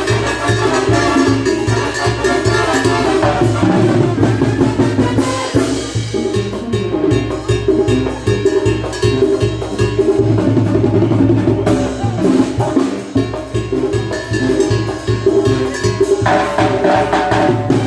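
Live cumbia band playing dance music, with drum kit and percussion keeping a steady beat under the melody.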